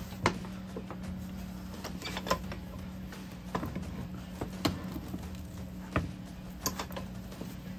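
Sharp metal clinks and taps of tools and small parts being handled on the brush end of a Bosch 24 V starter motor clamped in a vise, about six over the span, above a steady low hum.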